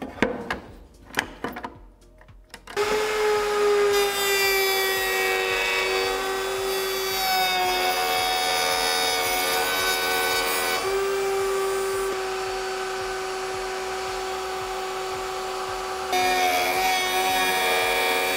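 A few knocks as the board is set against the fence, then about three seconds in the router-table router starts running with a steady high whine, cutting a pocket into a wooden board. The tone and loudness shift several times as the cut loads the router, dropping a little around twelve seconds in and rising again around sixteen.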